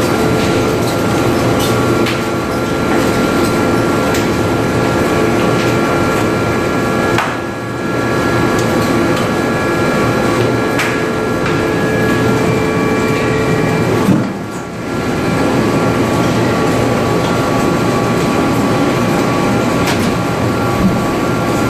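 Rubber two-roll mill and the factory machinery around it running: a loud, steady mechanical din with several steady whining tones and scattered clicks and knocks. The noise dips briefly twice, about seven and fourteen seconds in.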